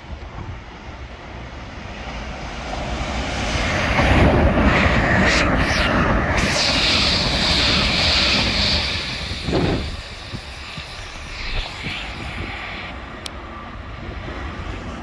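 An electric multiple-unit train running in alongside the platform. Its wheel and motor noise builds to a loud rushing sound with a high whine over it, then drops off about ten seconds in to a quieter distant rumble.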